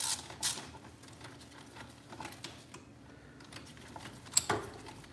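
Cordless power tool running in short bursts as it backs a bolt out of a motorcycle engine case, with light metallic clicking and one sharp metal clink about four seconds in.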